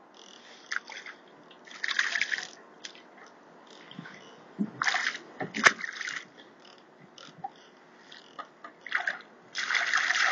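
Water splashing in short, irregular bursts, strongest about two, five and ten seconds in, with one sharp knock a little before six seconds in.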